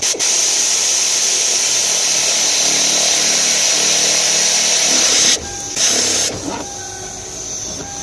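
A loud, steady hiss lasting about five seconds, then a second short burst of hiss about half a second later.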